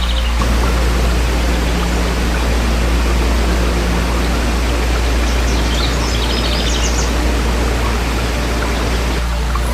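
Rushing stream water running steadily, with a few short bird chirps about six to seven seconds in.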